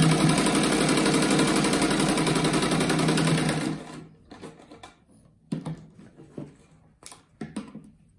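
Sewing machine stitching at a steady fast pace through layered cotton patchwork, then stopping abruptly about three and a half seconds in. After that come a few short clicks and rustles as the fabric is moved and turned under the presser foot.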